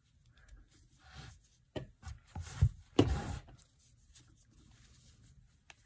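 Rustling and scraping of thick t-shirt yarn being drawn through stitches with an aluminium crochet hook, with a few sharp clicks between about two and three seconds in.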